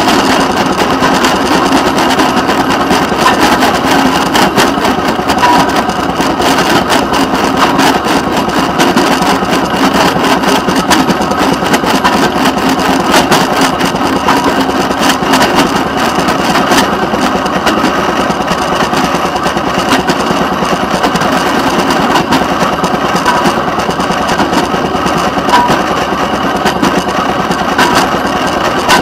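Rail motorcar (speeder) running steadily at low speed, its small engine droning with frequent clicks and rattles from the car and its steel wheels on the rails.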